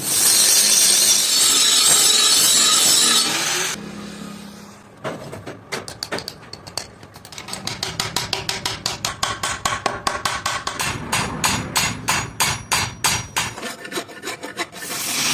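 Metalworking on the steel of a blade being made from an old bearing: steady grinding noise for the first few seconds, then a long run of quick, sharp strokes on the metal that come faster toward the end, with a faint ring to some of them.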